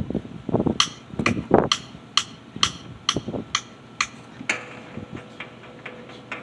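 Sharp taps at a steady beat, about two a second, with a long held tone coming in about halfway: the quiet opening of a music track before the guitar enters.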